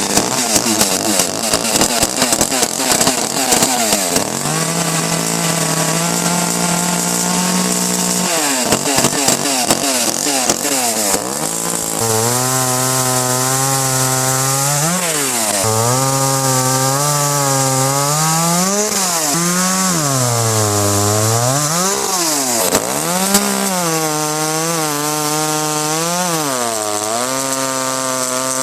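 Echo CS-310 30.5 cc two-stroke chainsaw running at full throttle and cutting through pine. The engine note is rough at first, then sags and climbs again over and over as the chain bites and the load comes on and off.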